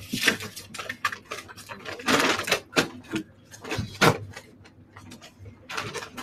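Paper rustling and crinkling with scattered light taps as paper cut-out apples are pulled off a paper poster and handled into a paper basket, with a longer rustle about two seconds in and a sharp tap about four seconds in.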